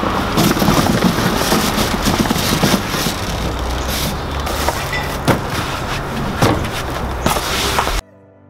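Gear being handled and packed in a carpeted pickup bed: rustling bags and a few sharp knocks and clunks of items against a hard storage case, over a steady low rumble. It cuts off abruptly near the end to soft music.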